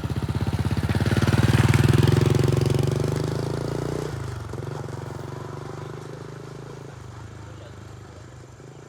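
A vehicle engine running with a fast, even chugging beat as it passes close by. It is loudest about two seconds in, drops in pitch around four seconds, then fades away as it moves off.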